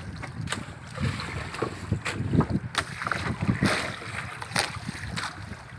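Wind buffeting the microphone and water lapping against a small fishing boat's hull, with irregular knocks and clicks from handling tackle on board.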